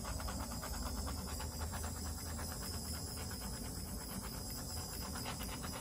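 Handheld torch flame burning steadily over wet acrylic paint: an even hiss with a low rumble and a fast flutter.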